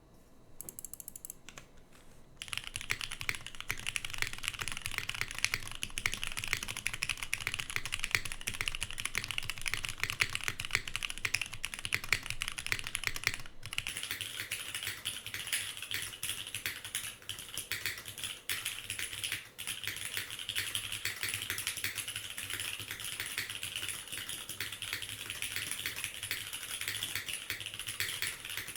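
Rapid typing on a Flybeck Khora65 mechanical keyboard with lubed, filmed Cherry MX1A Nixie switches, a nylon plate and GMK Sloth keycaps. A few scattered keystrokes at first, then steady fast typing from about two seconds in, with a brief pause about halfway through.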